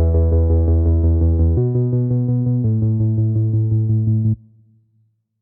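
Electronic background music with synthesizer chords over a fast steady pulse, the chord changing twice before the music cuts off sharply about four seconds in, leaving silence.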